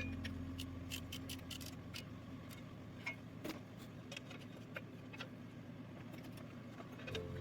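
Scattered light clicks and taps, sharp and irregular, while background music fades out over the first couple of seconds and comes back near the end.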